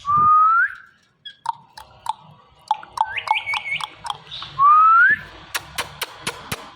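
Indian ringneck parrot whistling: two rising whistles, one at the start and one about four and a half seconds in. Between them comes a run of short clicks and quick high chirps, and several sharp clicks follow near the end.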